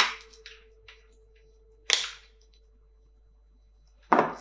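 Three sharp plastic snaps about two seconds apart as a hose fitting on an all-in-one liquid cooler's pump block is worked and snapped off.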